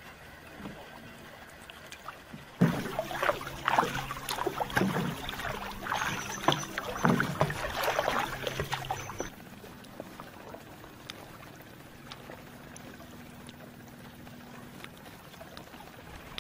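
Kayak paddle strokes: water splashing and dripping off the blade, loudest for several seconds in the middle, with a steady low hum beneath them. Fainter water sounds before and after.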